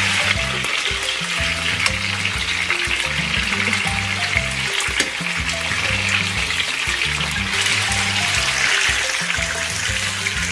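Chicken breast pieces sizzling steadily in hot oil in a frying pan, with a few light clicks, over background music with a steady bass line.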